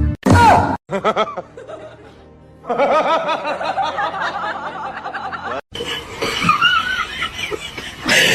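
People laughing and snickering, with music behind, cut off abruptly twice.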